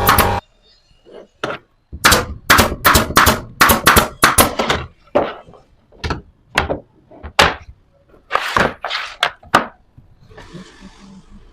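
A series of sharp knocks and thunks, close together for a few seconds and then more spaced out, followed near the end by a short rasping noise.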